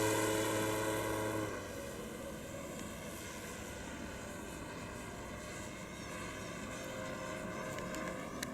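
Radio-controlled P-51 Mustang model airplane with an engine sound-effect unit, flying. Its loud steady engine drone drops away about one and a half seconds in, leaving a fainter, wavering propeller hum as it flies off.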